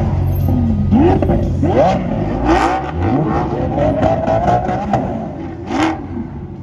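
Several car engines revving in overlapping rising and falling sweeps, with two short sharp cracks, one about two and a half seconds in and one near the end.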